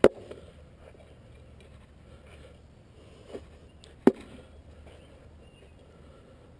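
Steel pry bar knocking against the concrete sidewalk edge as it levers an old drain pipe out from under the sidewalk. Two sharp knocks, one right at the start and one about four seconds in, with a fainter knock just before the second.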